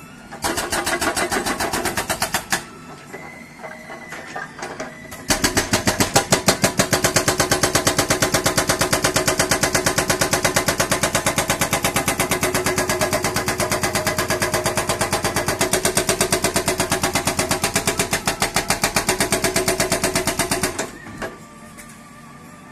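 Hydraulic breaker on a JCB backhoe hammering in rapid, even blows. A short run of about two seconds comes first, then a long steady run that stops about two seconds before the end.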